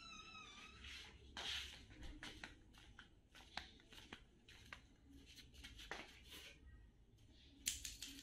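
Near silence: room tone with faint scattered clicks and rustles, a short high squeak that falls in pitch at the very start, and a louder cluster of clicks near the end.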